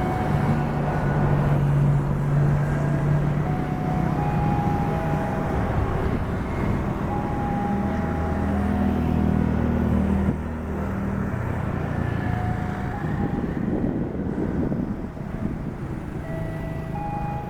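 Diesel train locomotive running past with a steady low engine rumble whose pitch shifts partway through. A tune of short high notes sounds over it.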